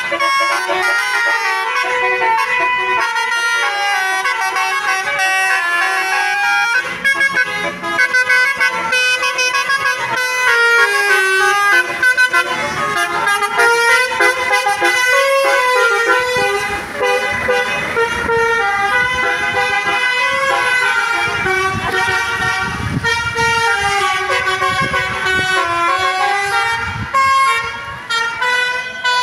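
Basuri telolet bus horn, a multi-trumpet musical horn, playing a quick tune of stepped notes over and over. A low rumble joins underneath about twelve seconds in.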